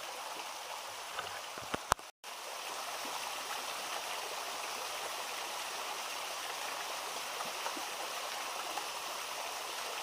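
Small forest stream flowing steadily, an even rush of running water. About two seconds in there are two sharp clicks and a momentary drop-out, after which the water sound carries on unchanged.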